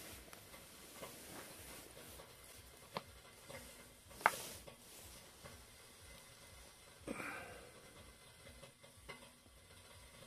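Faint clicks and rustles from an ice fisherman handling his small winter rod and gear over the hole. The sharpest click comes about four seconds in, with a brief rustle about seven seconds in.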